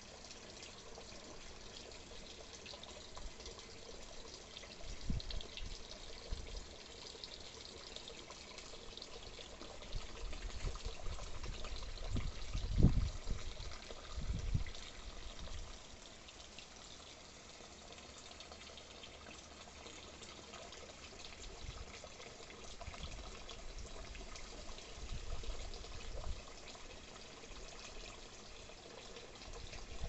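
Water trickling and pouring steadily, with a few low rumbles now and then, the loudest about thirteen seconds in.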